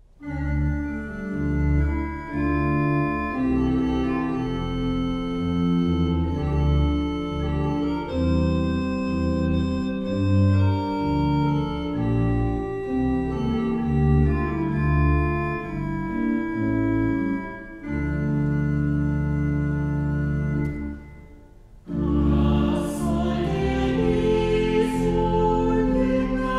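Church organ playing slow, held chords over a deep pedal bass. The sound dies away about twenty seconds in, and after a brief pause singing with accompaniment begins.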